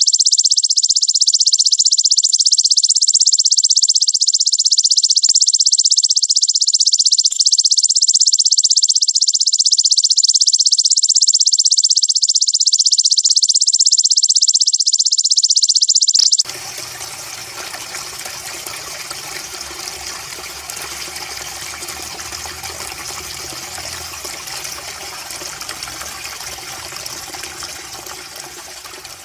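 Belalang raja insect (king grasshopper) giving a continuous, very rapid, dense high-pitched buzzing trill. It cuts off abruptly about 16 seconds in, giving way to a quieter steady rushing noise like running water that fades out near the end.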